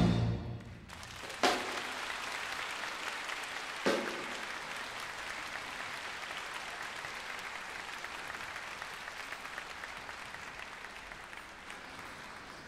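A large wind band's final chord cuts off, then a concert audience applauds steadily, the applause slowly fading. Two sharp single hits stand out about one and a half and four seconds in.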